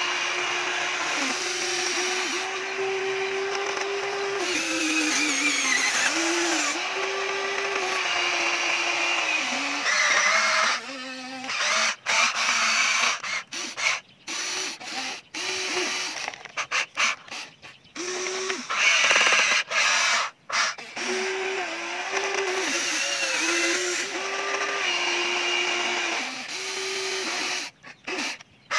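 Small electric motors of a remote-control toy excavator whining as it works its boom, arm and bucket, the pitch shifting up and down with each movement. In the second half the motors stop and start many times in quick succession.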